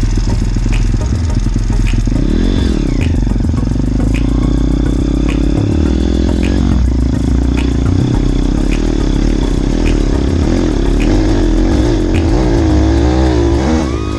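Motorbike engine running while riding, its pitch rising and falling with the throttle. A light regular ticking comes about every two-thirds of a second.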